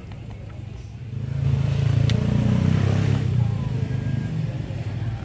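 A motor vehicle's engine passing close by: it swells up about a second in, is loudest in the middle, then eases away. There is a single sharp click near the loudest point.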